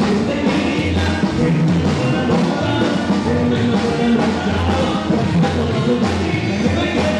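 Upbeat dance music with a singer over a steady bass line.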